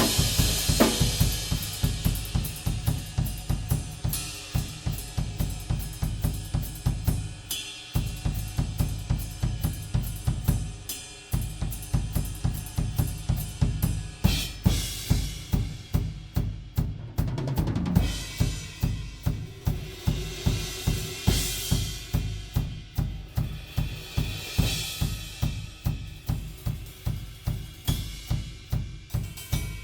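Acoustic drum kit played in a solo groove: fast, steady kick and snare strikes with hi-hat and cymbal crashes, breaking briefly about 8 and 11 seconds in, then a lower, tom-heavy fill around the middle before the beat picks up again.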